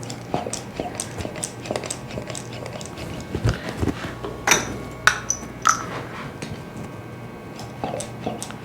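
Cupping cups clicking and clinking as they are handled and set on the skin: a dozen or so short, sharp knocks at irregular spacing, the loudest around the middle.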